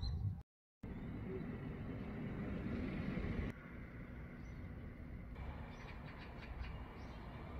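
Outdoor background: a steady low rumble with faint bird chirps in the second half. The sound drops out for a moment near the start and changes abruptly twice.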